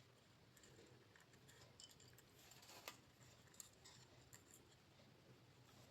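Near silence with a few faint, scattered clicks and scratches from jumper wires and small electronic parts being handled.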